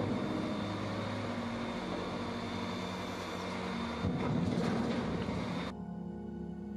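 MAN TGS truck's diesel engine running steadily to drive its loader crane while the crane works, with a brief rise in load about four seconds in. Near the end the sound cuts abruptly to music.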